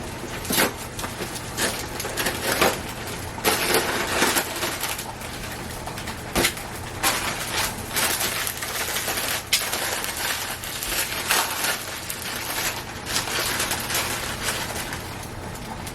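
Kitchen handling noises while preparing food: irregular light clicks, clatter and crinkling over a steady low hum.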